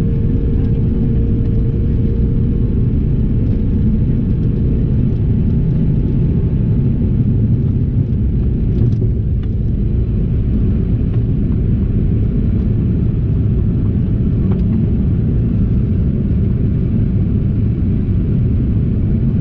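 Cabin noise of a Bombardier CRJ-200 on takeoff: the steady, loud rumble of its rear-mounted General Electric CF34 turbofans at takeoff thrust through the roll, rotation and initial climb. A faint steady hum sits under the roar and fades out about four seconds in.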